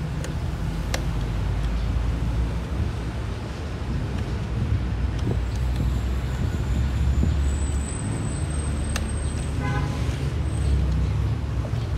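Steady low outdoor background rumble, with a few light clicks of the plastic fuel pump module being handled.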